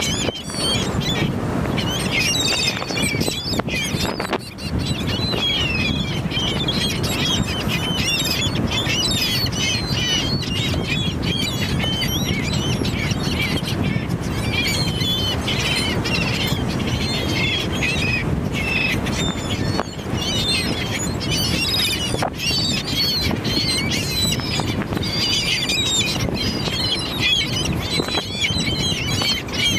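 A flock of sea birds squawking and squealing, many short overlapping calls going on constantly, over a steady low rushing noise.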